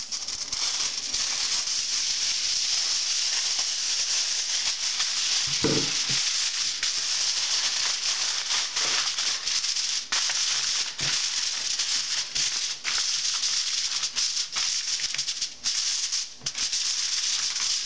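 Aluminum foil crinkling and crackling continuously as it is pressed and folded over a baking pan.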